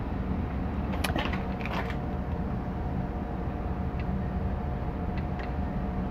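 Steady mechanical hum from the shop, with a short cluster of metallic clicks and rattles about a second in and a few light ticks later, as the rotary table is turned by hand in small amounts.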